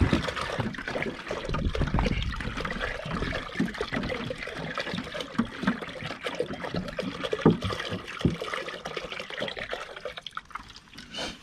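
Deionised water being poured into coolant concentrate to make a 50/50 coolant mix, a steady pour with small splashes that tails off and stops about ten seconds in.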